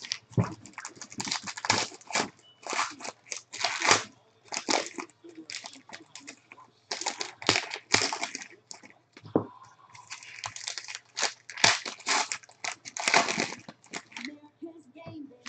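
Plastic packaging of trading-card boxes being torn open and crinkled by hand, in many short, irregular rustling and tearing rushes.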